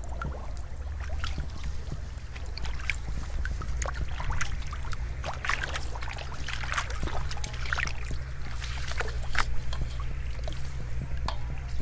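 Water splashing and sloshing as hands and legs work through shallow water, a string of irregular small splashes and drips over a steady low rumble.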